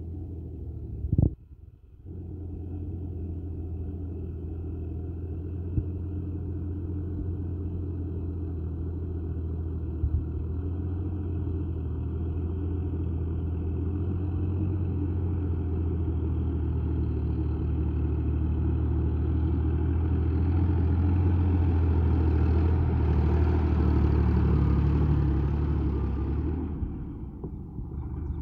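Diesel tractor engine running steadily under load, growing louder as it comes closer and fading near the end. A short click and dropout about a second in.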